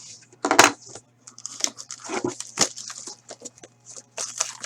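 Plastic wrapping crinkling and tearing as a sealed hockey card box is opened by hand, with small clicks from cardboard being handled.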